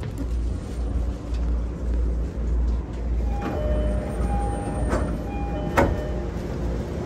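Commuter train running, a steady low rumble with higher whining tones joining about halfway through and two sharp clicks near the end.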